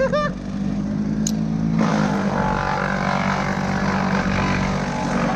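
A motor engine running steadily at an even pitch, with a short chirp at the start. A louder, harsher machine noise joins about two seconds in and keeps going.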